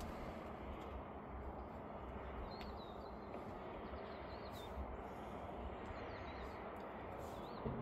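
Outdoor ambience: a steady low rumble and hiss, with a few short bird chirps scattered through.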